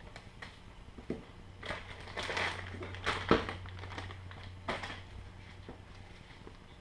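Clear plastic packaging bag crinkling and rustling in a few short bursts as it is handled, along with paper leaflets being handled.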